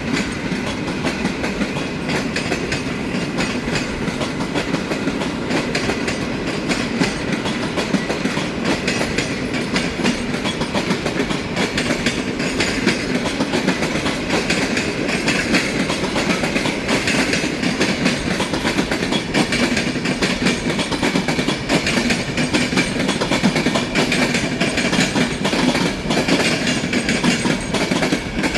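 A train running through the station close by, its wheels clattering steadily over the rail joints with a faint high whine above the rumble.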